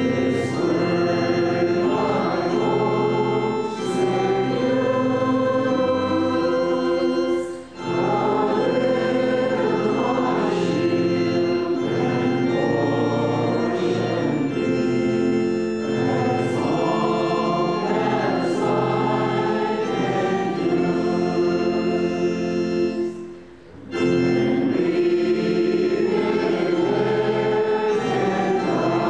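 Congregation singing a hymn to organ accompaniment, with steady held chords under the voices. The music drops out briefly twice, about eight seconds in and again about two-thirds of the way through, between phrases.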